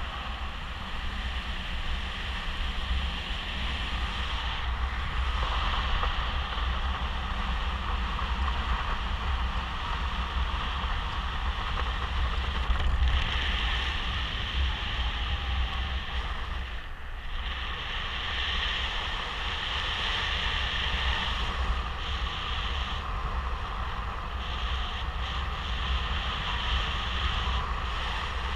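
Airflow over the camera microphone on a paraglider in flight: a steady wind rush with low buffeting rumble and a hiss that swells and dips.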